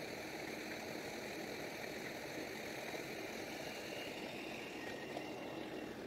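Passenger train coaches rolling past on the track, a steady even noise with no distinct wheel clicks.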